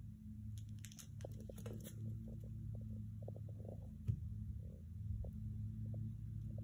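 A puppy's light ticks and taps as it plays with its toys and its claws click on a hard laminate floor, with one sharper click just after four seconds, over a steady low hum.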